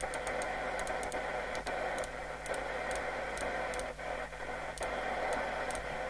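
A CB radio receiver's speaker hissing with static and foreign interference, with no usable signal on the channels. Light clicks come every half-second or so as the channel knob is stepped through the channels.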